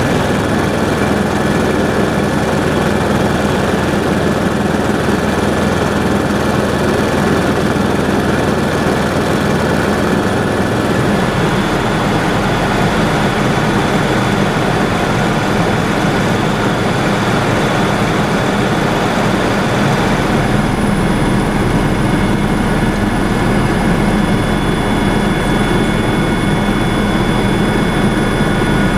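Helicopter in cruising flight heard inside the cabin: a steady, loud drone of rotor and engine with a few steady whining tones over it. The low hum shifts slightly about a third of the way in and again past the middle.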